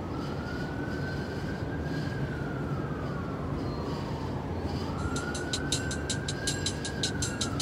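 Emergency vehicle siren wailing in a slow rise and fall, cycling about every five seconds, over a low city rumble. About five seconds in, a vaporwave track's beat comes in, with quick, even hi-hat ticks.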